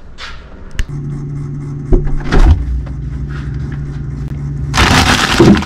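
Plastic produce bags rustling and crinkling loudly right at the microphone as they are handled on a refrigerator shelf, starting near the end, over a steady low hum, with a few knocks about two seconds in.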